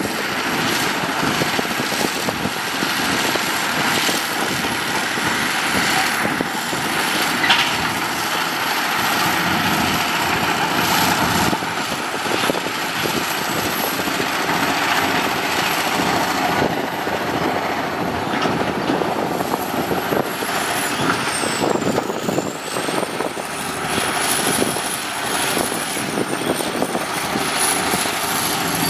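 Heavy diesel earthmoving machinery working steadily, with a dense rattling clatter and a thin high whine that dips in pitch twice about two-thirds of the way through.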